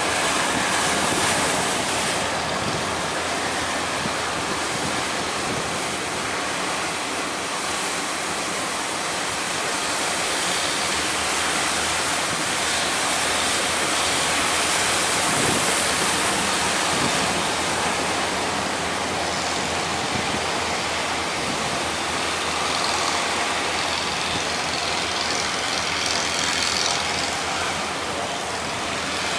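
Heavy surf breaking in a steady wash of noise, with wind buffeting the microphone.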